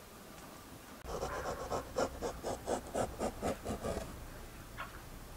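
Hands pressing and spreading soft dough, a quick run of even rubbing strokes at about four a second that stops about four seconds in.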